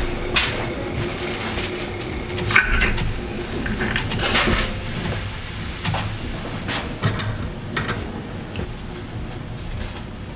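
Water bubbling at the boil in a glass pot while dry soba noodles are put in and worked down with wooden chopsticks, giving a run of clinks, knocks and rustles against the pot.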